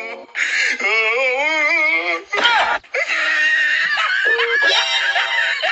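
Comedy soundtrack of music and sound effects: a loud wavering, warbling wail, then after a short break a busy mix of music and many short, high voice-like sounds.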